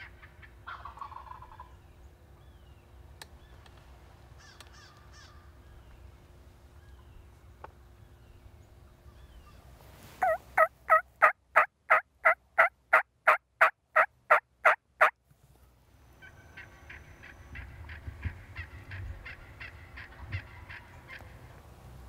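A long series of loud, evenly spaced turkey yelps, about three a second for some five seconds, starting about ten seconds in. Fainter, quicker turkey calling follows in the last few seconds.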